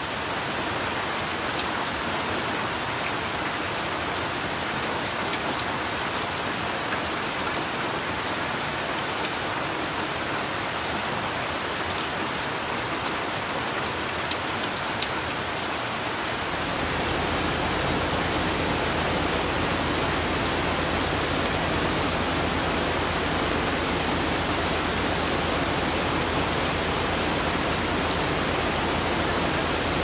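Heavy rain falling steadily on forest foliage, an even hiss with a few faint single drop ticks. A little past halfway it grows fuller, deeper and a bit louder.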